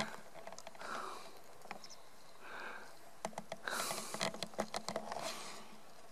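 Footsteps on dry twigs and leaf litter: soft rustling, then a quick run of sharp crackles about three to five seconds in.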